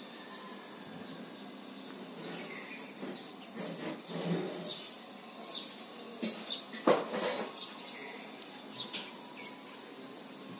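Birds chirping now and then, with a few short clattering knocks in between, the loudest about seven seconds in.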